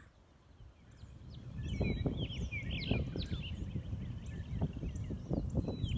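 Footsteps rustling and crunching through grass and dry leaves, starting about a second in and growing louder, with small birds chirping high and quick over them.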